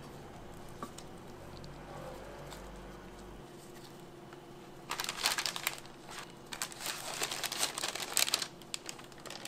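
A brown paper crepe sleeve crinkling and rustling as a folded crepe is wrapped in it, in loud crackly bursts starting about halfway through and stopping shortly before the end.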